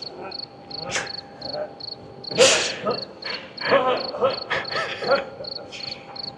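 Cricket chirping: short, high chirps repeating evenly about three times a second throughout. A man's laughter sounds over it in the middle.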